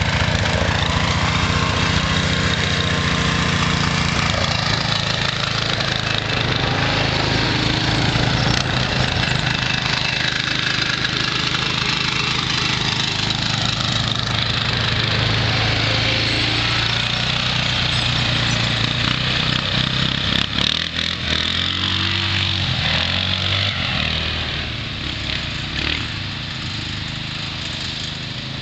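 John Deere lawn tractor's engine running as it is driven over rough dirt ground, its pitch rising and falling with the throttle. It grows fainter in the last few seconds as the tractor moves away.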